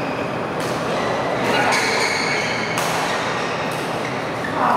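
Steady ambient noise of a large indoor badminton hall, with a few sharp knocks of rackets hitting shuttlecocks and short high squeaks, likely shoes on the court floor, from play on nearby courts. The sound gets louder near the end.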